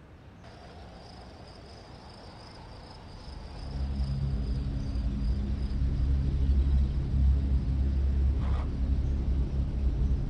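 A low, steady rumbling drone fades in about three and a half seconds in and holds, with a faint high chirping hiss above it early on.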